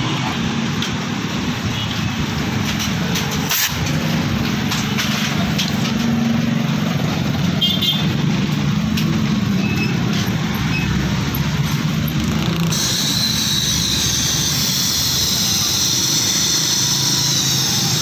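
A small engine running steadily. About two-thirds of the way in, compressed air starts hissing steadily from an air gun held against the motorcycle's engine as its old oil drains.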